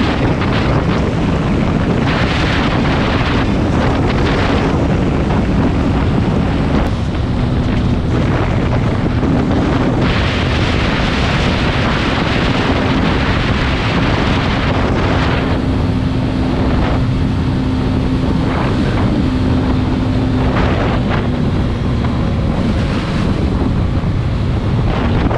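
Heavy wind buffeting on a helmet-mounted action camera over the steady drone of a 150 cc Yamaha FZ-S motorcycle engine at cruising speed, its pitch rising and falling a little.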